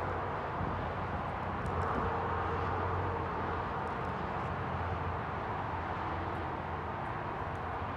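Steady outdoor background noise with a continuous low hum.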